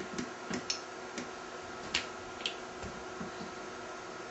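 A handful of small, sharp, irregular clicks and taps from hands working a small grease gun and the plastic parts of an RC crawler axle, over a faint steady hum.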